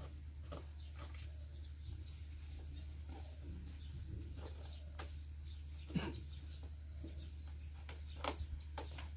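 Birds chirping over a steady low hum, with two sharp knocks, one about six seconds in and one near the end.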